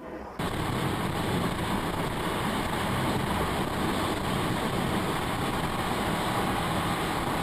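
Steady road and engine noise of a moving car, starting abruptly just under half a second in.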